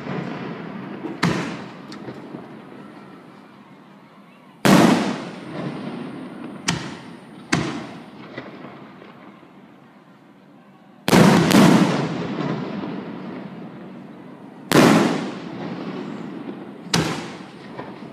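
Aerial firework shells bursting one after another: about eight sharp booms spaced a few seconds apart, two of them close together around eleven seconds in. Each boom is followed by an echo that fades away over a second or two.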